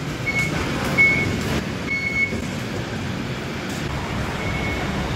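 Short, single-pitch electronic beeps, about five at irregular spacing, from the station's exit fare gates as passengers' cards are read. Under them runs a steady hubbub of the busy station.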